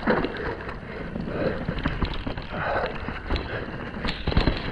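Mountain bike rattling and clattering over rough trail ground, tyres running on dirt under a stream of short knocks, with a few heavier knocks about four seconds in.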